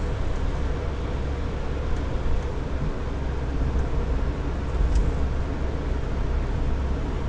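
Steady road and engine noise inside a moving car's cabin, picked up by the dashcam's own microphone: a low, even rumble of tyres and engine at a steady cruising speed.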